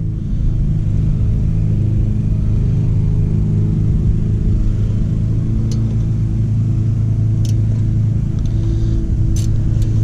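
A steady low mechanical hum, like an engine running, with a few light metallic clicks from a 14 mm wrench on the rear brake caliper's guide pin bolts in the second half.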